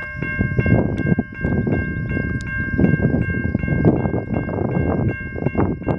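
Railroad crossing warning bell ringing in an even rhythm, about two and a half strikes a second, the signal that the crossing has been activated for an approaching train. A loud, uneven low rumbling noise runs underneath.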